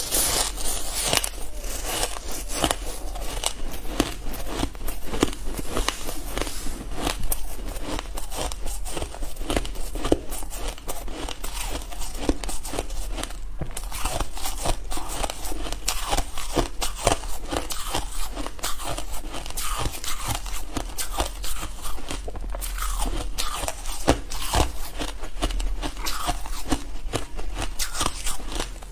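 Soft white shaved ice being bitten and chewed close to the microphone: a dense, rapid, crackly crunching.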